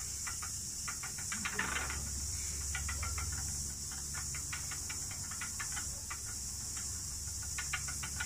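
Cicadas droning in a steady high hiss, with patches of fast clicking coming and going.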